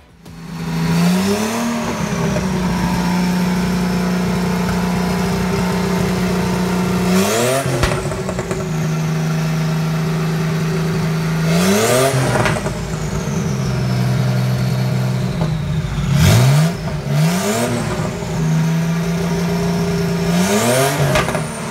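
Porsche 930 Turbo's air-cooled turbocharged flat-six idling steadily and being blipped about six times, each rev rising and dropping back to idle, with a high whine falling away after the blips.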